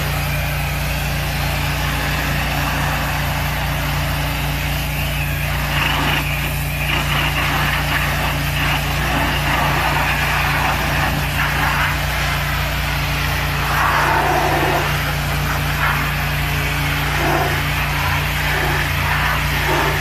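A motor running steadily with a low hum and a broad hiss, joined from about six seconds in by uneven, shifting noise.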